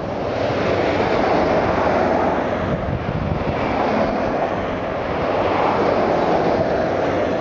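Road traffic going by, a steady rushing of tyre and engine noise that swells in the first second and again later.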